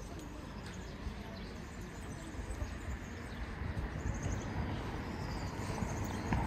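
Street ambience: a steady low rumble with faint distant voices, and a few faint high chirps about four seconds in.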